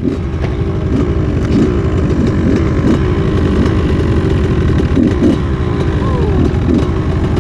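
An engine idling steadily close by, with a fast low pulsing.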